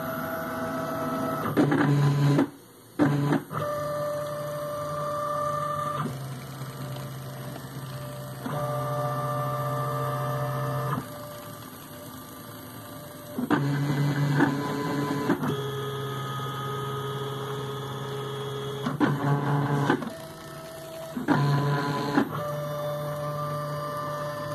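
Homemade roller-chain-driven CNC router's axis drive motors running as the machine plots lines with a pen at 150 inches per minute: a steady humming whine that shifts pitch each time a move changes, in stretches of a few seconds. It stops briefly about two and a half seconds in.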